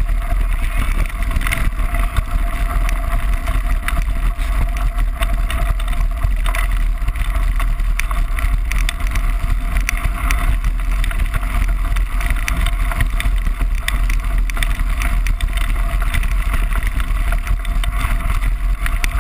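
Wind buffeting the microphone of an action camera riding on a mountain bike as it rolls down a gravel track, with a heavy, steady rumble and constant small rattles and clicks from the tyres and mount on the loose stones.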